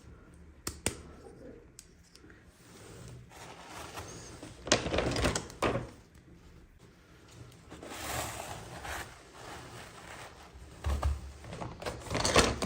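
Hands handling toy packaging up close: a few sharp plastic clicks, then three bursts of rustling and crinkling about five, eight and eleven seconds in.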